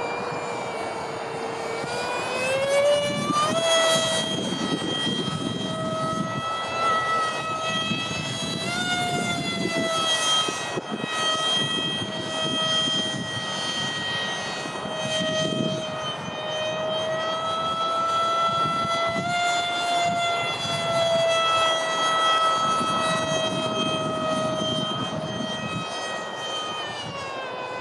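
Electric ducted fan of a Freewing Eurofighter V2 RC foam jet (WeMoTec Midi six-blade fan) in flight: a steady high whine whose pitch rises about three seconds in and again around nine seconds, then drifts gently up and down with throttle.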